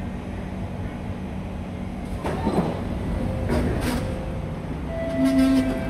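C151C MRT train standing at an underground platform, its equipment running with a steady low rum. Its doors and the platform screen doors slide open with two short clattering bursts about two and three and a half seconds in. A brief tone sounds near the end.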